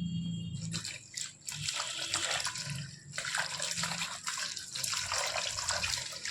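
Tap water running and splashing into a sink in uneven surges.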